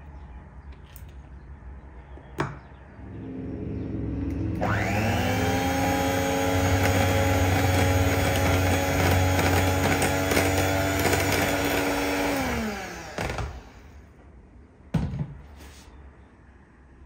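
Electric hand mixer switched on with a click, its motor rising to a steady whine as the beaters whisk a bowl of batter. After about eight seconds it is switched off and winds down with a falling pitch, followed by a sharp knock.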